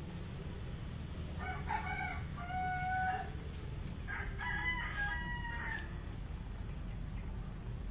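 A rooster crowing twice, two drawn-out calls a little over a second apart, over a steady low rumble.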